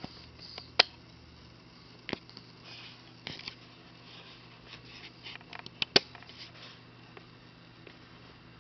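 Newborn baby hiccupping: short, sharp hics about one every second and a quarter at first, then a quick cluster with the loudest hic about six seconds in, over a steady low hum.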